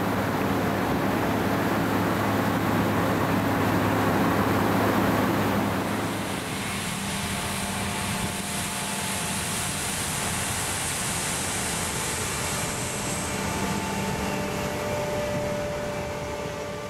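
Combine harvester with a stripper header working a wheat field: a steady engine and machinery drone with held tones. The sound changes about six seconds in and fades out near the end.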